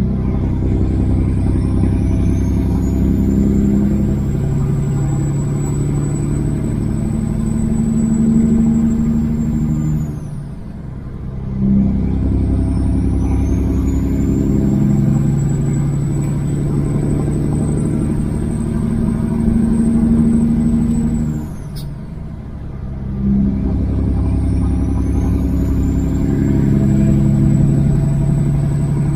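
Kenworth W900 semi truck's diesel engine pulling under load and working up through the gears. Its low rumble builds with a high whistle climbing alongside it, then drops off briefly twice, about a third and two thirds of the way through, as the driver shifts.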